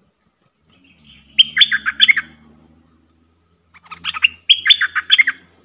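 Bulbul song: two bursts of quick chirping notes, each lasting about a second to a second and a half, the second coming about two seconds after the first.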